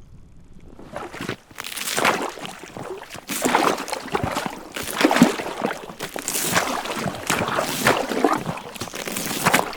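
Small waves sloshing against ice at the water's edge, a splashing surge about every second and a half.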